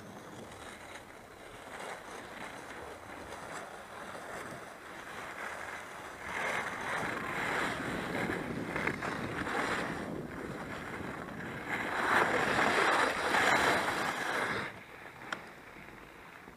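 Alpine skis scraping and hissing over groomed snow while skiing downhill, with wind rushing over the microphone; it grows louder about six seconds in, is loudest a few seconds before the end, then drops off sharply.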